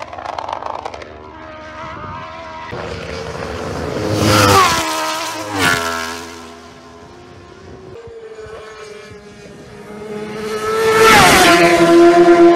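Race motorcycles passing flat out on an open road: the engine note swells to a loud peak and drops in pitch as a bike goes by, about four and a half seconds in and again near the end, with the second bike's engine still loud and high-revving as it goes away.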